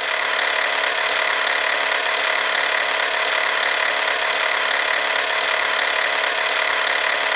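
A loud, steady hiss-like rushing noise that swells in over the first half second and then holds level, with a few faint steady tones beneath it.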